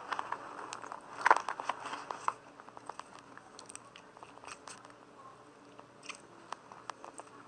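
Homemade slime being squeezed and stretched by hand, giving off small wet clicks and pops, a quick cluster about a second in, then sparser ones.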